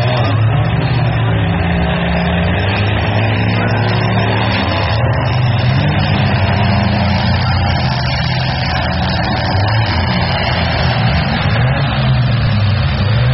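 Demolition derby car engines running loud, several at once, their pitch rising and falling as they rev.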